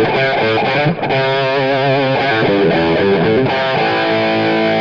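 Loud outro music led by a distorted electric guitar, playing a riff with wavering notes before settling into a held chord near the end.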